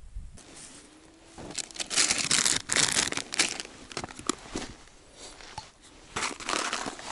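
Crinkling and rustling of plastic packaging and a fabric bucket as hands rummage through fishing groundbait. It comes in two spells, the louder starting about a second and a half in and another near the end.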